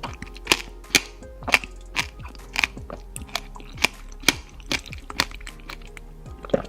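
Close-miked eating: sharp crunching cracks about twice a second, over background music.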